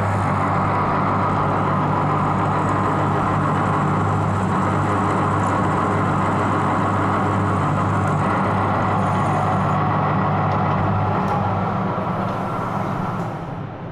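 Lathe running with a steady motor hum, which winds down and drops off near the end.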